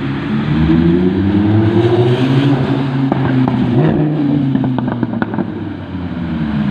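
Lamborghini Huracán V10 engine revving up for about two seconds, then coming off the throttle with its exhaust popping and crackling between about three and five and a half seconds in, the engine note falling.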